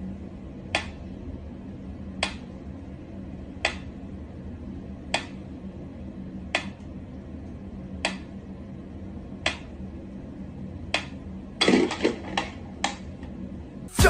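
Sharp, evenly spaced clicks, one about every second and a half, over a low steady hum, then a quick flurry of several clicks about twelve seconds in.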